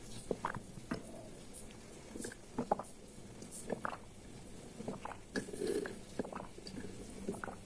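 Close-up mouth sounds of someone drinking water from a glass jar: faint, irregular gulps and swallows with small wet clicks.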